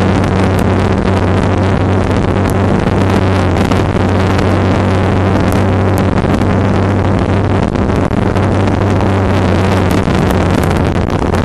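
Yamaha R15's single-cylinder engine running steadily at highway cruising speed, under heavy wind and road noise on the microphone.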